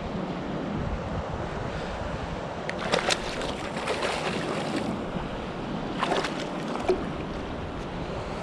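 Hooked tautog splashing at the water's surface beside a kayak, in bursts about three seconds in and again about six seconds in, over steady wind noise on the microphone and lapping water.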